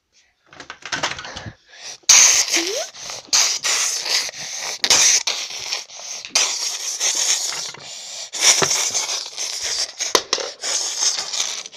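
Close, irregular rustling and scraping against the recording phone's microphone, as the device is handled with its lens covered. It starts faintly and grows louder about two seconds in.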